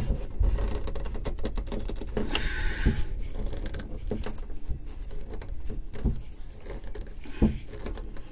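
A hand working an oil filter loose on a Yamaha 1.8L four-stroke engine: scattered clicks, taps and knocks of fingers and the filter against the engine, the loudest about 3, 6 and 7.5 seconds in, with a brief rustle about 2.5 seconds in, over a steady low rumble.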